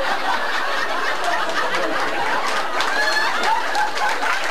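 Live audience laughing after a punchline, with scattered clapping running through the laughter.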